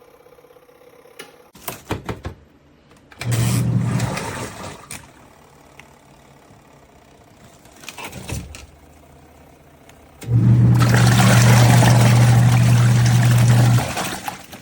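Costway twin-tub portable washer's motor switching on twice, briefly about three seconds in and for about three and a half seconds near the end, each time a steady low hum with a rushing noise over it that starts and stops abruptly. The washer is failing to run properly: the owner says it is not going although nothing is blocking it.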